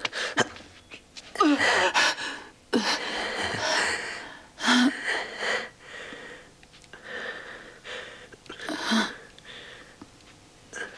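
A woman gasping and sobbing in distress: ragged, loud breaths broken by short whimpering cries, heaviest in the first half and quieter near the end.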